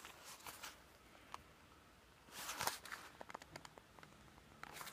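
Faint handling noises of a small cardboard nail-kit box turned in the hands: scattered light clicks and taps, with a short rustle about halfway through.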